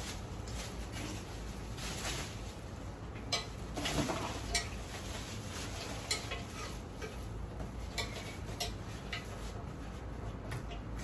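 Scattered light clicks and knocks of electric grill parts being unpacked and handled, with rustling of plastic packaging.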